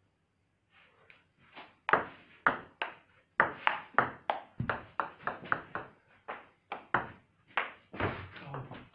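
Table tennis ball being hit to and fro in a rally, clicking sharply off the bats and the table two to three times a second. The clicks start about two seconds in.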